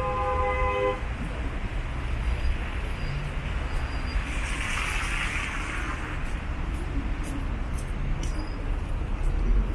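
Road traffic on a slushy city street: a steady low rumble of vehicle engines and tyres, with a short pitched tone in the first second and a hiss about five seconds in.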